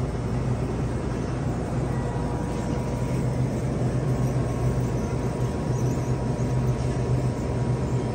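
Steady low hum of a large store's indoor background machinery, with a faint steady high tone over it.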